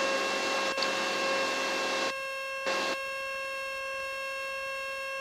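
Cockpit drone of a Mooney 231's turbocharged six-cylinder engine and propeller in the climb at 2,500 RPM, a steady hum with a hiss over it. The hiss cuts out about two seconds in and briefly returns.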